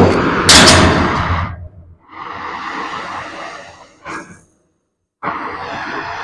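Oxy-fuel cutting torch blowing gas in rushes: a sudden loud blast lasting about a second and a half, then two softer, steady hisses of about two seconds each, each followed by a short puff. The torch is being purged to blow moisture out of it.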